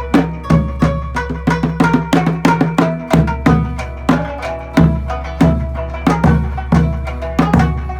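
Okinawan folk music played live: sharply plucked string notes over drum strokes in a steady, even beat.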